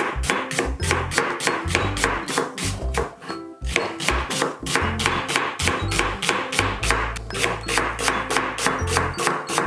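Background music with a steady beat of about four strokes a second over a bass line and sustained notes.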